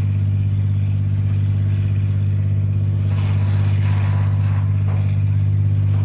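Diesel engine of a Challenger 2-based armoured bridgelayer running at steady revs while the bridge is lowered onto the ground, giving a loud, even low drone; the engine is a V12.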